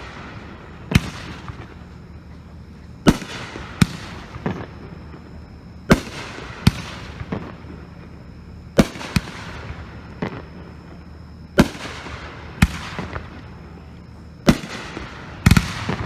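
Dominator Fireworks' Detonator firing: sharp firework bangs, mostly in pairs about a second apart, repeating every two to three seconds, some followed by brief crackling.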